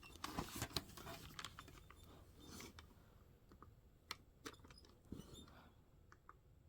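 Faint, scattered small clicks and light rustling of hands handling laptop parts, busiest in the first second and a half, then a few isolated ticks.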